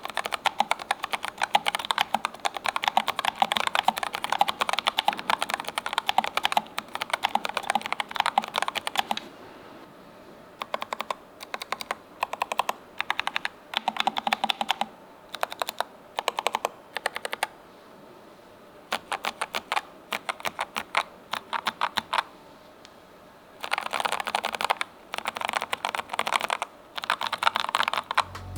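Keystrokes on a Keychron K3 Ultra low-profile mechanical keyboard fitted with Milk-POM Banana switches: fast continuous typing for about the first nine seconds, then short runs of keystrokes with pauses between them.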